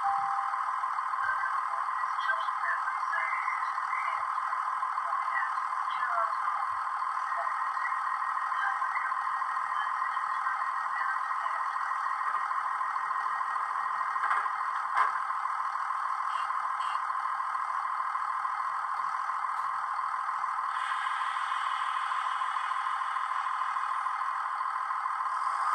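Steady idling hum from a standing Chiltern diesel multiple-unit model, played by its sound decoder through a small speaker that gives it no bass, with a few faint clicks. A brighter hiss joins late on.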